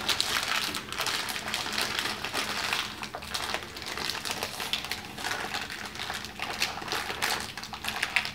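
Plastic snack bag crinkling and crackling as it is handled and opened, with many small irregular crackles.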